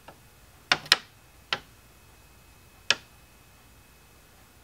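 Sharp, irregular clicks or taps: a faint one at the start, two close together about three-quarters of a second in, another about half a second later and a last one near three seconds in. A faint steady high whine runs underneath.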